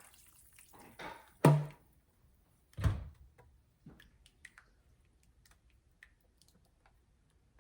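Cookware being handled: a sharp clunk about a second and a half in, a duller thud near three seconds, then a scatter of light clicks and taps.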